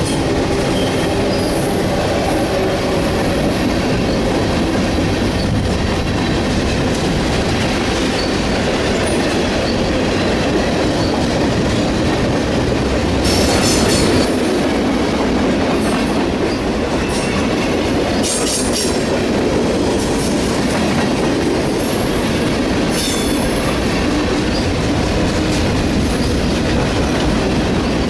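A train rolling past with a steady rumble of wheels on rail, with a few brief high-pitched wheel squeals.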